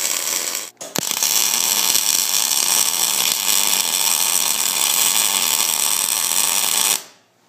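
Wire-feed welding arc crackling as a steel plate is tack welded. One weld stops just under a second in, and a second, longer weld starts about a second in, runs steadily for about six seconds and cuts off sharply near the end.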